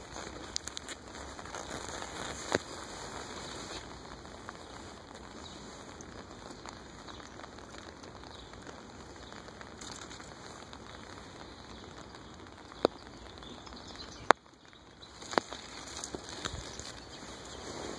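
A steady hiss of outdoor noise, with a few sharp clicks and knocks from a handheld phone being handled. Just after fourteen seconds the hiss drops away briefly.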